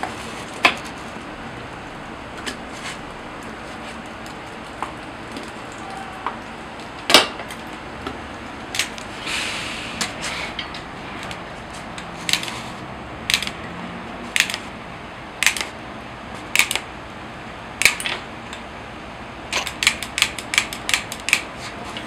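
Sharp metallic clicks and clinks of kitchen utensils against iron taiyaki molds, scattered one at a time, then a quick run of about eight clicks near the end, over a steady hiss.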